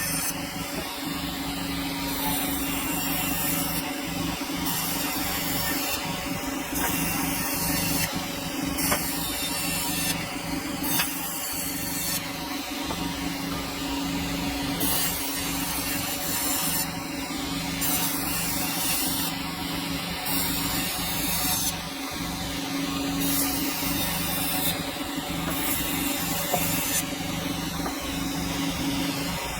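Sawmill blade cutting through a dense hardwood log, a steady noisy rasp over the constant hum of the mill's motor.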